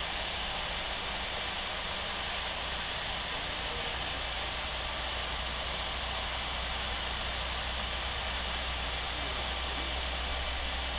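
Steady jet noise from a Boeing 777 being pushed back by a towbarless tug: an even whooshing hiss with a low rumble underneath, unchanging throughout.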